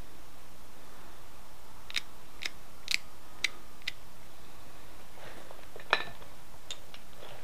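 Antler tool clicking against the edge of a stone arrowhead: five sharp clicks about half a second apart, starting about two seconds in, then a louder single click about six seconds in.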